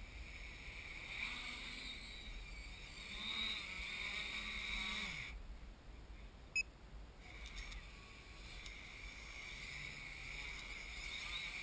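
HobbyKing X666 quadcopter's brushless motors and propellers whining steadily. The whine drops out for about two seconds past the middle, with a single sharp click, then comes back.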